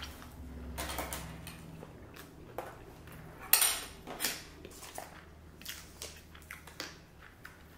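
Tableware and takeout containers being handled during a meal: scattered light clicks and knocks of chopsticks against plastic trays and containers, with one sharper clack about three and a half seconds in and another shortly after.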